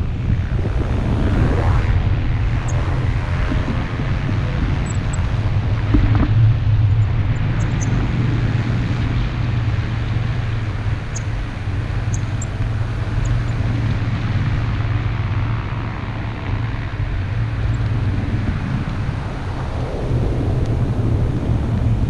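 Wind rushing over the camera's microphone in the airflow of a tandem paraglider in flight: a steady low rumble that rises and falls slightly.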